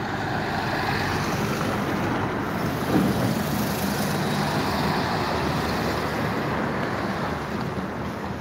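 Street traffic driving past, with box trucks among the vehicles: a steady wash of road noise that grows a little louder about a second in and peaks briefly around the middle.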